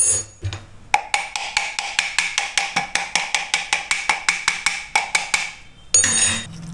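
Vanes of a car blower motor's squirrel-cage fan wheel clicking one after another as a screwdriver tip is run across them to knock out dust, about six clicks a second, each with a short ringing tone. A short, louder rasp comes right at the start and again near the end.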